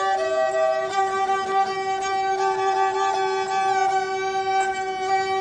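Background music: a melody moving over steady held drone tones.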